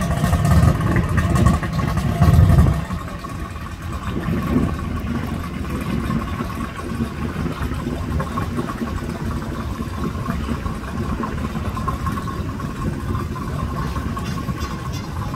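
Personal watercraft (jet ski) engine running at low speed, louder for the first few seconds and then settling into a steady idle hum.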